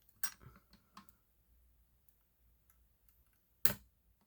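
A few light clicks and taps in the first second, then one sharper click near the end, from a fire alarm pull station and its reset key being handled.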